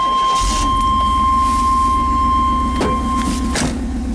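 Truck engine firing up and settling into a low, steady idle. A steady high warning chime sounds over it and stops about three and a half seconds in, with a knock a little before and another as the chime stops.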